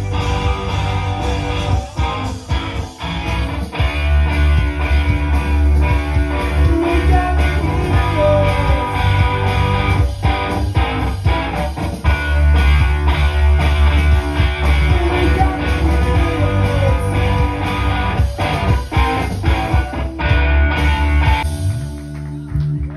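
A live rock band playing: electric guitar, bass guitar and drums, with a heavy low end and regular drum hits. The full band thins out near the end.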